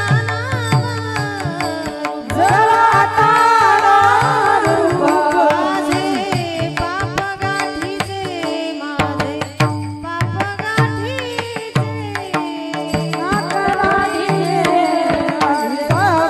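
Devotional kirtan music: a woman's voice singing a melody over a sustained harmonium accompaniment, with a steady hand-drum beat and sharp cymbal clicks.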